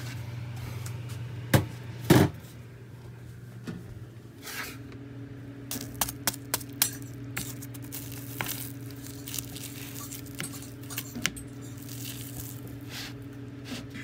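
Metal fork scraping and clicking against a ceramic bowl as it breaks through flaky, crispy puff-pastry crust, with a cluster of sharp clicks in the middle and a louder knock about two seconds in. A steady low hum runs underneath.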